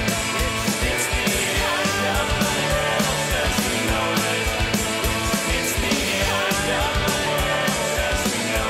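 Background rock music with a fast, steady drum beat.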